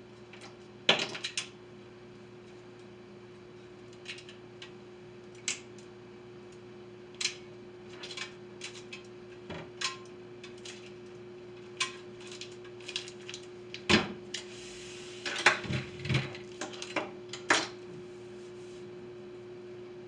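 Kitchen clatter: a stand mixer's metal beater and bowl being handled and cleaned, with scattered clinks and knocks, loudest about a second in and again in a busy cluster about three-quarters through. A steady low hum runs underneath.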